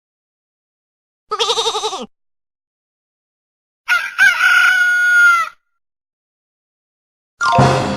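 Farm-animal sound effects: a short wavering bleat about a second in, then a rooster crowing for about a second and a half. Near the end comes a sudden pitched sound that fades away.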